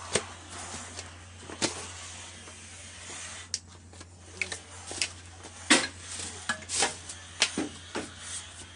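Irregular knocks, clatters and rustling as household recyclables (plastic, cans and bottles) are handled and sorted, over a steady low hum.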